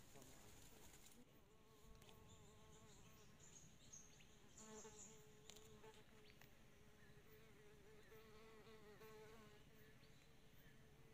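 Faint buzzing of a flying insect's wings, a steady hum that wavers slightly in pitch, starting about a second in.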